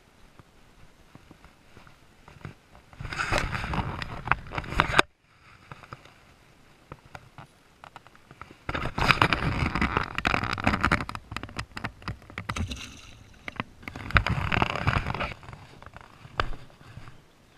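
Three bursts of rustling and knocking handling noise with many small clicks, as a caught bass is held and handled among shoreline rocks and plants. The middle burst is the loudest, and the first cuts off suddenly about five seconds in.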